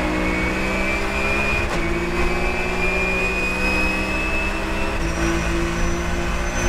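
Porsche 997.1 GT3 Cup's flat-six engine pulling hard under full acceleration, heard from inside the cockpit over wind and road noise. The engine note climbs steadily and breaks briefly about two seconds in and again about five seconds in.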